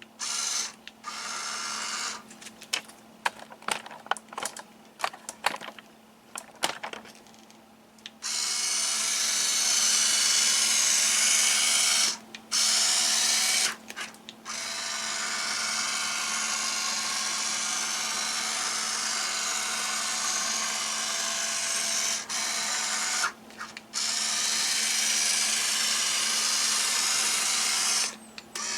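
Electric pan-and-tilt motors of a GoLight remote-controlled halogen searchlight whirring as it is driven from the remote: first in a quick series of short jogs, then in long steady runs that stop briefly a few times.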